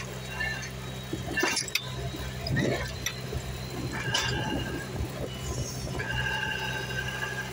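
Mini well-drilling rig's machinery running with a steady low hum. Intermittent metallic clinks and knocks come through it, and a pitched squeal sets in near the end.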